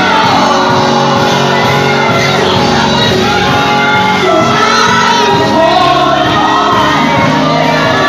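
Live gospel praise singing: a woman leads on a microphone with backing singers over loud amplified music, with shouting mixed in.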